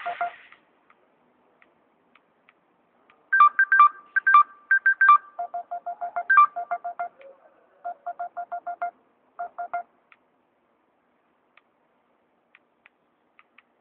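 A quick run of short electronic beeps at a few fixed pitches, forming a simple tune like a monophonic phone ringtone or keypad tones. It starts about three seconds in with higher notes, shifts to a repeated lower note, and stops near the ten-second mark. A brief hiss comes at the very start.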